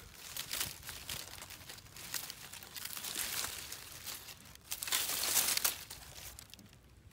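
Dry sugarcane leaves rustling and crackling in several uneven bursts, loudest about five seconds in.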